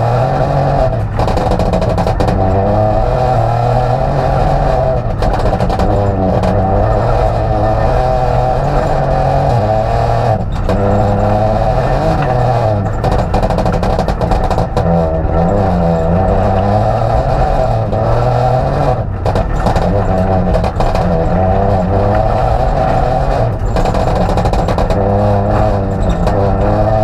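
A Peugeot 208 Rally4's turbocharged three-cylinder engine, heard from inside the cabin, revving up and down through repeated gear changes. Short cut-outs in the drive fall between the pulls, and a constant road-noise haze from the gravel runs under it all.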